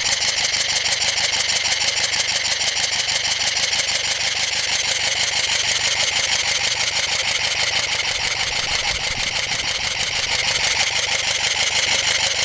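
Scale Heisler locomotive's two-cylinder V engine (2 1/8" bore, 2" stroke) running steadily on compressed air at about 20 psi, each exhaust puff hissing in a fast, even beat. It runs smoothly, with very little vibration.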